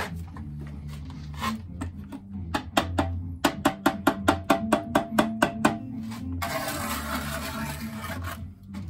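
A quick run of sharp taps, about five a second, as a freshly laid concrete block is tapped down into its mortar bed to bring it level. After that comes a longer gritty scrape of a steel trowel cutting squeezed-out mortar off the block joint. Background music with low steady tones plays underneath.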